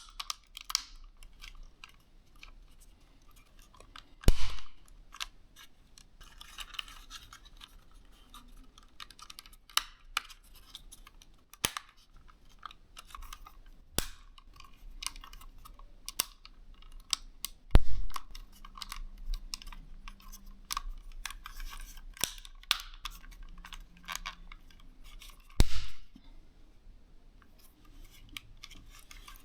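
Small plastic clicks and snaps as the DJI Mini 3's plastic housing and side gimbal covers are handled and clipped into place. Scattered light ticks are broken by three louder snaps: one about four seconds in, one about halfway through and one near the end.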